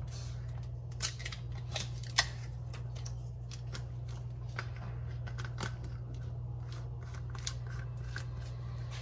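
A plastic-capped container of ground sage being opened and handled: a string of sharp clicks and crinkles, the loudest about two seconds in, over a steady low hum.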